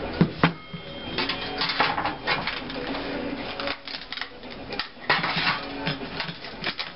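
Thin sheet steel clanking and scraping against a steel tube and the bench as it is flexed and bent over the tube by hand. Two sharp knocks come right at the start, followed by bursts of scraping and rattling.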